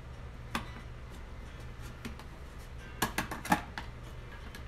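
Small clicks and taps of hands and a tool working at the main board's mounting on a disassembled LCD TV: one click about half a second in, then a quick run of several sharper clicks about three seconds in, over a low steady hum.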